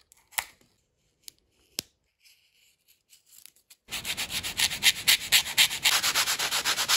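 Vacuum-formed plastic torpedo half being sanded flat by hand with sandpaper, in quick, even back-and-forth strokes that start about 4 s in. Before that there are a few sharp clicks from handling the parts.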